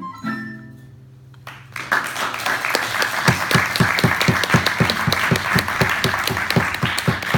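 The last notes of a recorder piece, with a low accompanying note held, end about a second and a half in, and an audience starts applauding and keeps clapping steadily.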